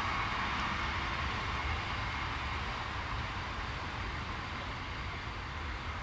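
Steady outdoor background noise: a low rumble with an even hiss on top, unchanging throughout.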